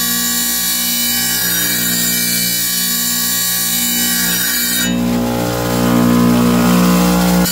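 Wet tile saw's diamond blade cutting a small stone, a steady motor hum under a high gritty grinding. About five seconds in the grinding stops as the stone comes off the blade, and the saw runs on freely.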